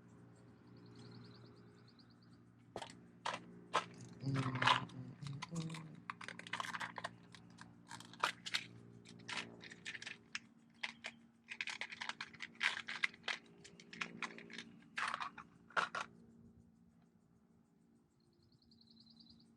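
Hands handling automotive wiring and plastic connectors: irregular clicks, crackles and rustles from about three seconds in until near the end. A bird chirps briefly at the start and again at the end.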